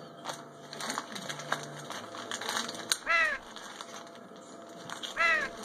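A bird calls twice, about two seconds apart; each call is short and harsh and drops in pitch. Soft clicks run underneath from a chef's knife working through a plastic-wrapped bacon pack on a wooden cutting board.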